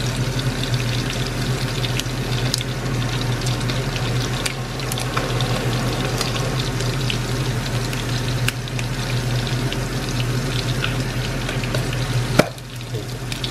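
Battered squid rings deep-frying in hot oil in a wok: a dense, steady crackling sizzle over a low hum, while metal tongs turn the pieces. A sharp click near the end, after which the sizzle briefly drops.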